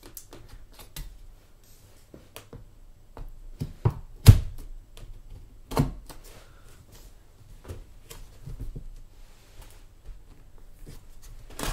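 Hands handling and opening a cardboard keyboard box: scattered light taps and scrapes, with a few sharp knocks, the loudest about four seconds in.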